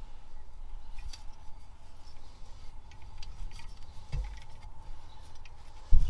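A few light metallic clicks and taps of a screw extractor and hand tools being worked into a broken bolt in a plough casting, with a dull knock about four seconds in. A faint steady high hum sits underneath.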